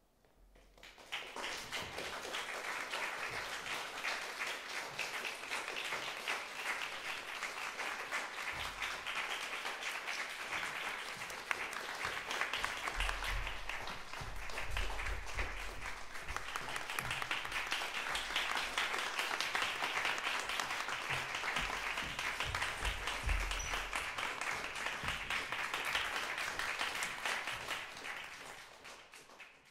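Audience applauding: many people clapping, starting about a second in, holding steady, then fading away near the end.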